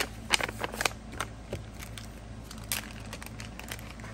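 Kraft paper envelope and small plastic zip bags rustling and crinkling as they are handled. Sharp crackles come thick in the first second and sparser after that, over a steady low hum.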